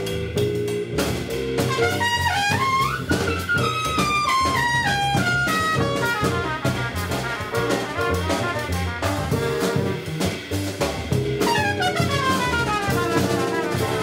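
Live jazz quartet: trumpet soloing in quick falling runs of notes, over walking upright bass, guitar and drum kit with cymbals.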